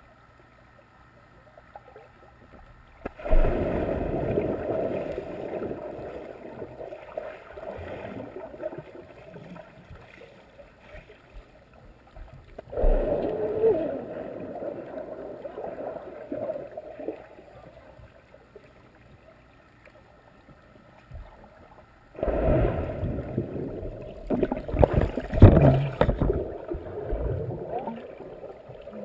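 Muffled underwater sound of people plunging into a swimming pool, picked up by a submerged GoPro: three sudden rushes of water and bubbles, about ten seconds apart, each fading over several seconds. The last is the loudest, with crackling bubbles.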